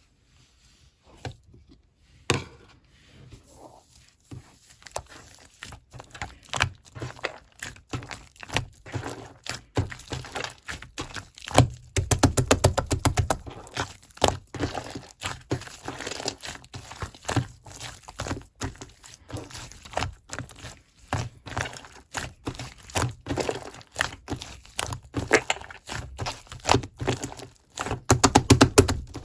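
Blueberry foam being squished and worked: dense runs of small crackles and pops with occasional thunks, thickest about twelve seconds in and again near the end.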